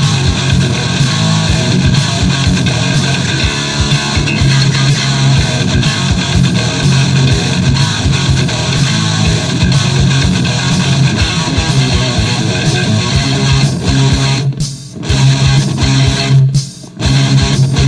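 Guitar music from a guitar demo recording, with two brief breaks near the end.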